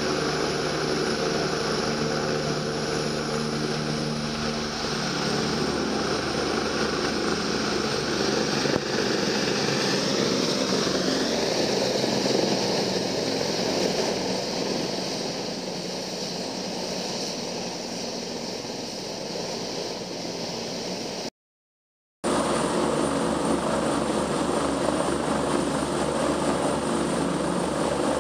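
Rescue helicopter running close by: a steady rush of rotor and turbine with a whine whose pitch shifts around four seconds in and again around ten to twelve seconds in. The sound cuts out for about a second a little past twenty seconds and comes back louder.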